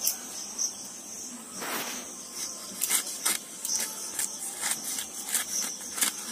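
Crickets chirping steadily in the background while a small knife cuts through pineapple rind. There is a soft scrape about two seconds in, then a run of short, crisp cuts and clicks from about three seconds in.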